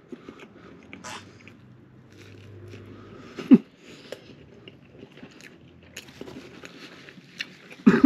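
Close-up chewing and biting of a Big Mac and a chicken nugget, soft and wet. Near the end a short, loud, fart-like notification sound from a Samsung phone goes off. A similar loud short blip with a falling pitch sounds about three and a half seconds in.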